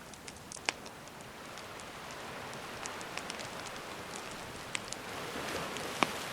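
Campfire crackling with scattered sharp pops, the loudest near the end, over a steady wash of gentle sea waves.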